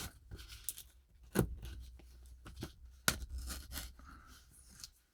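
A blade cutting open a shipping box: scraping and tearing, with two sharp snaps about a second and a half and three seconds in.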